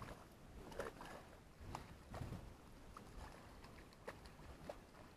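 A hooked fish thrashing at the water's surface, making faint, irregular splashes.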